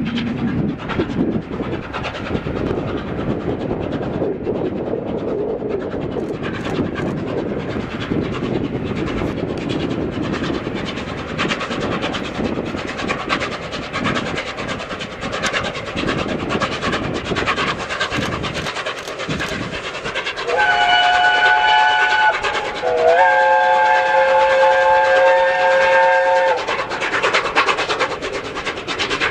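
Steam locomotive 60163 Tornado running with the clatter of its train. Near the end its steam whistle sounds a chord of several notes: a short blast, then a longer one.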